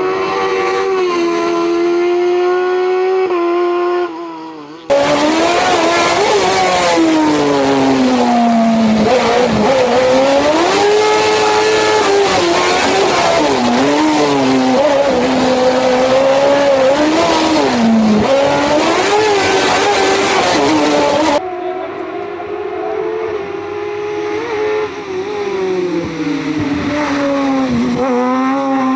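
Hill-climb race car engines at full throttle, pitch rising and dropping repeatedly through gear changes and corners. The sound changes abruptly twice, about five seconds in and again near the twenty-one-second mark, as it switches from one car's run to another.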